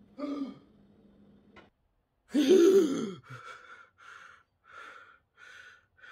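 A man gasps loudly for air, then breathes hard in short, even breaths, about one every two-thirds of a second.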